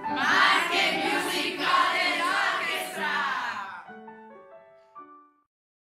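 A group of young people's voices calling out together for about three seconds, over piano music that carries on quietly afterwards and fades out about five seconds in.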